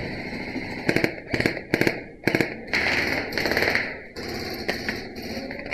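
Airsoft gun firing on full auto: several short rattling bursts, then a longer burst of about a second.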